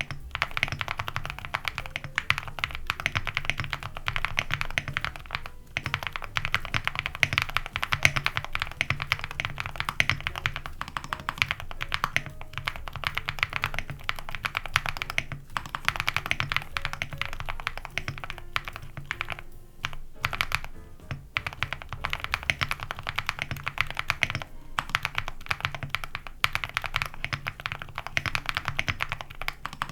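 Steady, fast typing on a mechanical keyboard with Gateron Moon Landing switches, an aluminium plate, full foam and dye-sub PBT keycaps. The keystrokes come as dense clicks, broken by a few brief pauses, with background music underneath.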